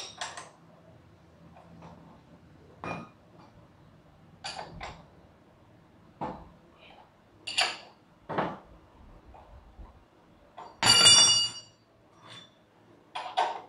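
Steel spanners clinking and knocking against the motorcycle's front axle nut and fork in short, irregular clinks, as the front wheel is undone. About eleven seconds in comes one louder metallic clang that rings for about half a second.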